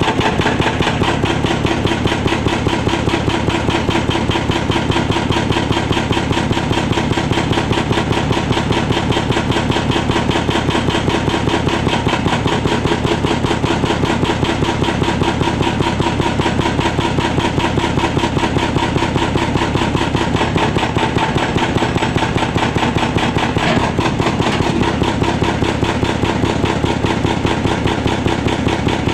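Excavator-mounted hydraulic breaker hammering, a rapid, steady stream of blows over the excavator's diesel engine running.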